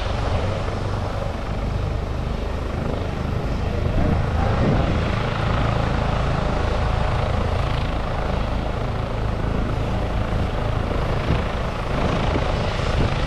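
Helicopter running nearby, a steady, loud rotor and engine noise with a deep rumble that keeps an even level throughout.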